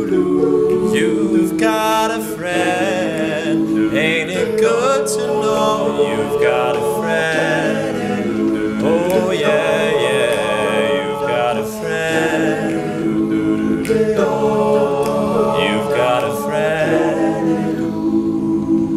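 Men's a cappella group singing in close harmony: sustained chords from the backing voices under a lead tenor's melody.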